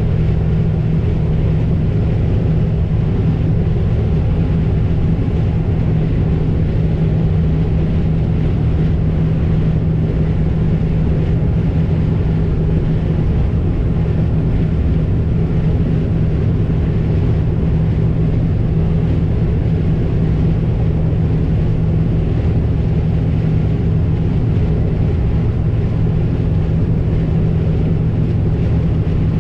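Farm vehicle's engine running steadily at constant speed, a continuous low drone with a strong steady hum.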